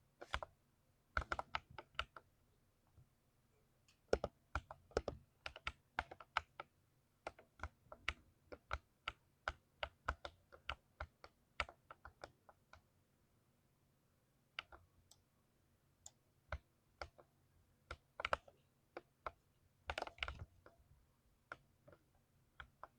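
Typing on a 60% mechanical keyboard with lubed switches: irregular runs of keystrokes, a few per second, with short pauses between bursts.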